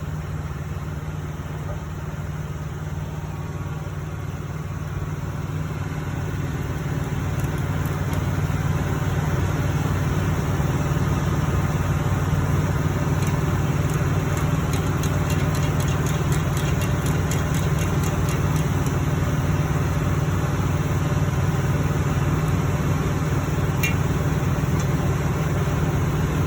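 A truck engine running steadily at idle, growing a little louder over the first several seconds and then holding, with a run of faint rapid ticks in the middle.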